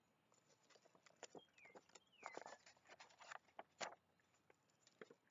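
Faint rustling and crinkling of a picture book's pages being handled and turned, many small scattered ticks and scrapes. Two short chirps that slide downward in pitch come about a second and a half and two seconds in.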